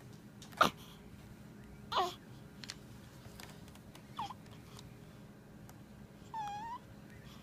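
Newborn baby's small vocal sounds: a sharp hiccup-like squeak under a second in, short squeaks at about two and four seconds, and a brief high-pitched coo near the end.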